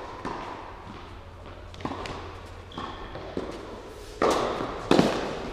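Tennis rally on an indoor court: racket strikes and ball bounces ringing out in the hall, about six knocks spaced roughly a second apart, the two loudest close together near the end.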